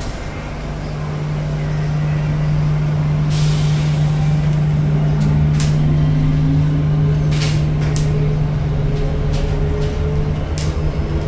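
Cabin sound of a Bombardier Innovia APM 100 rubber-tyred people mover pulling away and gathering speed: a steady motor hum sets in right away, with a whine that rises in pitch as it accelerates. Sharp clicks come every second or two as it runs along the guideway.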